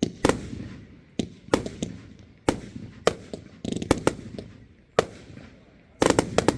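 Aerial fireworks shells bursting overhead: a string of sharp bangs at uneven spacing, each fading with a rolling echo, then a quick cluster of bangs near the end.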